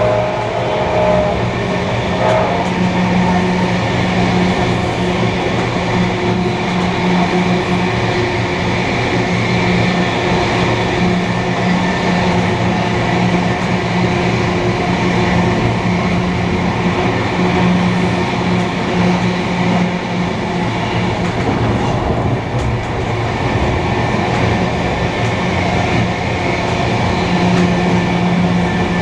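Train hauled by steam locomotives 3265 and 3526 running along the line: a loud, steady rumble of wheels on rails that holds even throughout.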